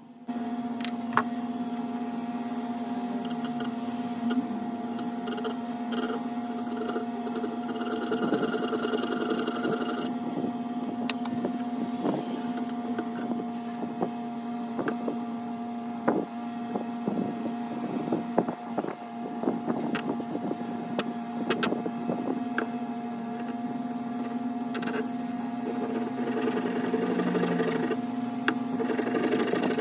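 Steady droning hum, with scattered clicks and taps of tools handled on a wooden block and a steel knife blank. About eight seconds in there is a scraping stretch of about two seconds, and near the end more scraping as a small file works the blank's edge.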